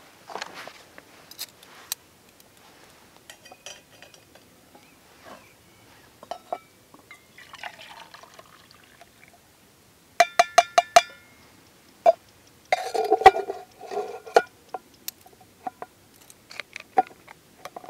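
Metal camping cookware handled on rock: water poured from a small metal pot into a stainless steel mug, followed by a quick run of about seven sharp, ringing metal clinks and then a rattling clatter of metal on metal.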